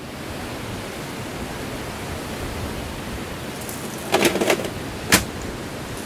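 Steady rush of surf and wind on a beach, with a brief clatter about four seconds in and a sharp click about a second later.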